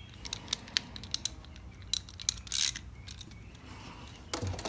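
Scattered light metallic clicks and taps of bolts and a socket being handled while a starter solenoid is fitted, with one short scraping rasp about two and a half seconds in.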